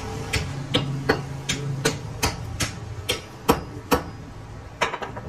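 A hammer striking metal in quick, evenly spaced blows, about three a second, a dozen in all, with a short gap before the last two. A steady low hum runs under the first couple of seconds and then stops.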